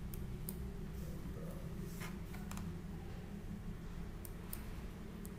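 A few faint, scattered clicks of a computer mouse over a steady low hum.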